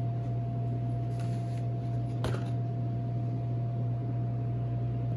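Steady low mechanical hum with a faint constant whine above it, the room tone of a commercial kitchen's running equipment, with one small click about two seconds in.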